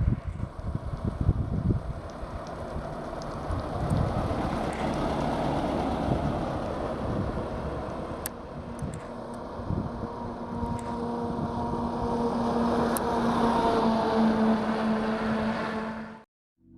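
Road vehicles passing close by, with wind buffeting the microphone at first. Later a steady engine drone grows louder as a vehicle approaches, then the sound cuts off abruptly near the end.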